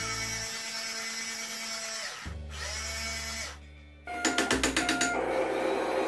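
Electric gear motor of a Tonka Super Crane remote-control toy truck whirring as it raises the boom. A rapid run of about ten clicks comes just after four seconds.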